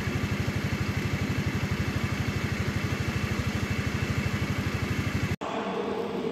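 An engine idling close by, a steady pulse of about fourteen beats a second. It cuts off abruptly about five seconds in, giving way to quieter room sound.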